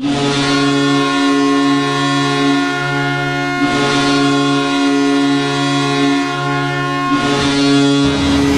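Hockey goal horn made of a Leslie RS37 and a Kahlenberg KM135 air horn sounding together, one loud steady chord in long blasts that dip and restart twice. Music starts under the horn near the end.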